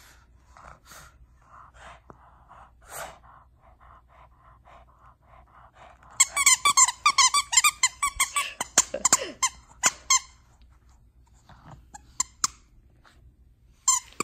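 Large plush squeaky toy squeaking as a Shih Tzu chews it to get at the squeaker: a quiet start with soft rhythmic sounds, then from about six seconds in a fast run of high squeaks lasting about four seconds, a few scattered squeaks after, and more near the end.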